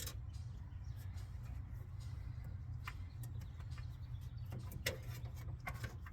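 A few light clicks and rubbing from a rubber coolant hose being worked onto a radiator fitting, over a steady low hum.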